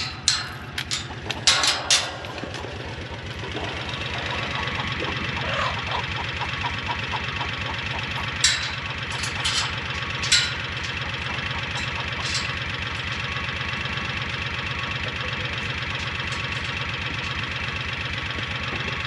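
A vehicle engine idling steadily with an even, low pulse. Several sharp clicks or knocks come in the first couple of seconds, and a few more come about 8 to 10 seconds in.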